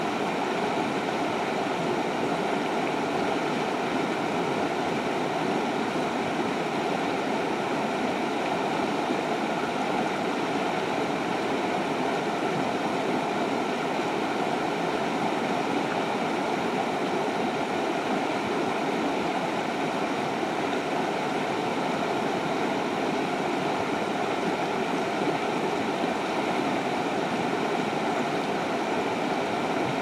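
Shallow river rapids running over and between boulders: a steady, even rush of water.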